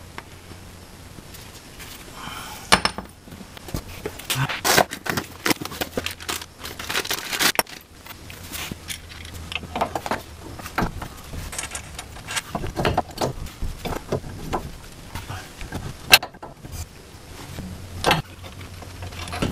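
Irregular metallic clinks, taps and knocks of steel suspension parts and hand tools being handled at a car's front steering knuckle, as a new tie rod end or ball joint is worked into place. One sharper knock comes about 16 seconds in.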